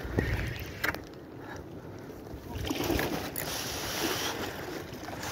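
Sea water washing against shore rocks, with wind buffeting the microphone; the wash swells louder about three seconds in, and a couple of sharp clicks sound in the first second.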